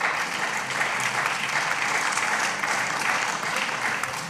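Applause from the members of a parliament chamber, steady and then dying away near the end.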